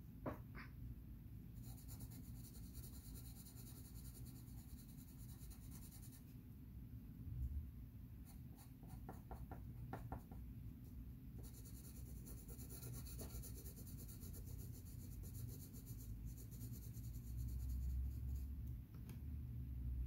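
Pencil scratching across paper in shading strokes, in stretches several seconds long with short pauses between them.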